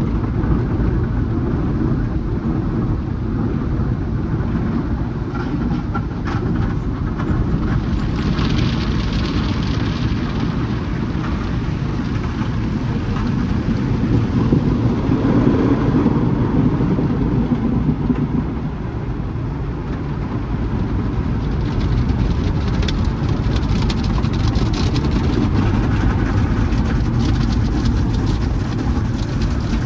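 Peco tunnel car wash equipment working on the car, heard from inside the cabin: rotating brushes and hanging curtain strips slap and scrub against the body and glass while water and foam spray over it. A steady, loud wash of noise, swelling a little partway through.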